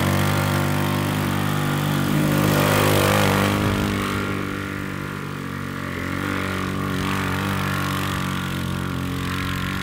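A GY6 150cc single-cylinder four-stroke engine drives an off-road go kart under throttle with a steady drone. It is a little louder about two to three seconds in and eases slightly around five seconds in.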